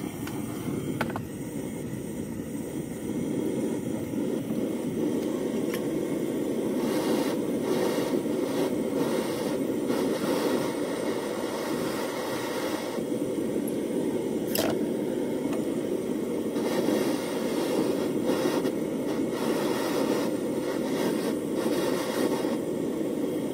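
Handheld gas blowtorch burning steadily, its flame held on a pair of pruning scissors to disinfect them.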